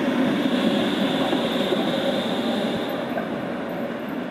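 TWT Vario LF2R.E tram with a VV60 trailer rolling along street track, a steady rumble and hum that grows slowly fainter as it moves away.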